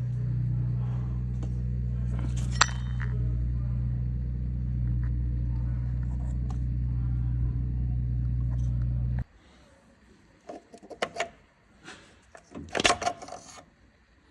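A machine runs with a steady, low hum and cuts off suddenly about nine seconds in. A few metallic clinks and rattles of tools or parts follow.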